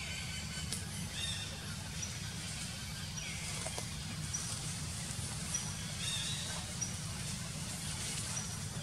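Forest ambience: a short high chirp repeating about once a second, with a few other brief calls, over a steady low rumble.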